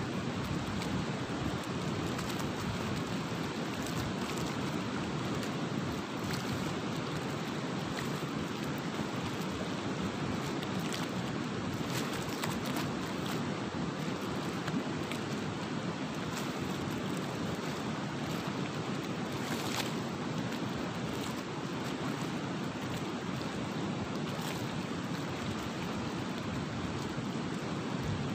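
Steady rushing noise of wind and flowing river water, with a few faint clicks now and then.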